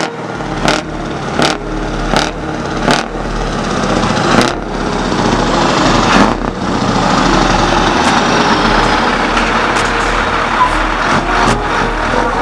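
Heavy truck's diesel engine running as it drives past, growing louder toward the middle and easing off near the end.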